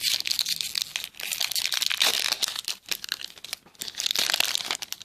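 Foil wrapper of a Pokémon booster pack being crinkled and torn open by hand: a dense crackling that thins out to a few scattered crackles near the end.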